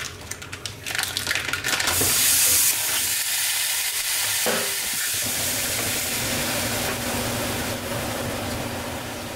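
Raw lean 92/8 ground beef sizzling in a hot nonstick frying pan. A few clicks and knocks of handling come first, the sizzle starts loud about two seconds in, then holds steady and eases off near the end.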